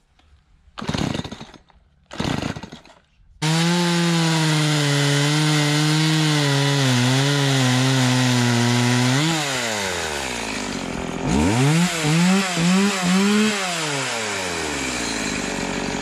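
Stihl two-stroke chainsaw: two short rasping pulls of the starter cord, then the saw running at high revs while cutting through a log, its pitch wavering under load. It then drops to idle, is blipped four times, and idles.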